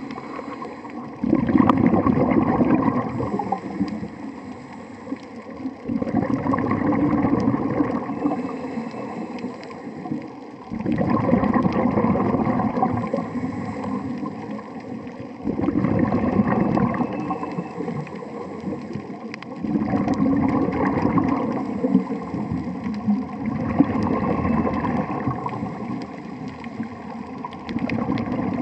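Scuba diver breathing through a regulator underwater: a loud bubbling rumble of exhaled air about every four to five seconds, with a quieter rush between breaths.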